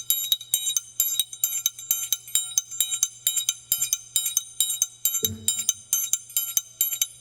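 Triangle played at a brisk, steady pace in the quadrilha rhythm, about four strikes a second. The hand opens and closes on it, alternating ringing and damped strokes.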